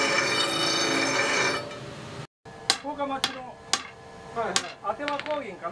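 Iron pressed against a large power grinding wheel, a loud steady grinding noise with a ringing whine, which stops about a second and a half in. After a brief silence, a series of sharp metal-on-metal taps about half a second apart as hot steel is worked at the anvil.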